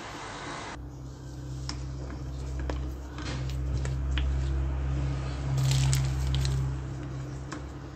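A piping bag squeezes chocolate cream onto a sponge cake layer, with faint handling clicks. Under it a steady low machine hum starts about a second in and gets louder a little past the middle.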